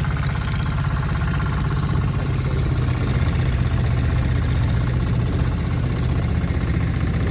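A combustion engine running steadily at an even speed, a deep, rapid pulsing drone heard close by.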